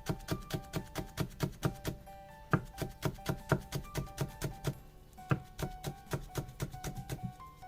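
Background music: a light, bouncy tune of short plucked and tapped notes on a steady beat.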